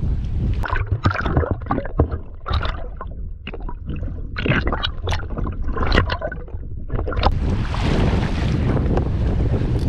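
Strong wind buffeting the microphone on a kayak in choppy water, a constant heavy rumble. Through the middle few seconds a string of short knocks and splashes sounds, and a steady hiss of wind and water returns near the end.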